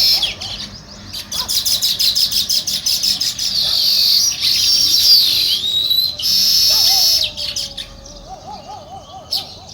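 House sparrows chirping, several birds at once, with a fast run of sharp repeated chirps in the first few seconds and dense chattering after. The chirping thins out in the last few seconds, where a lower, wavering call from another bird comes in.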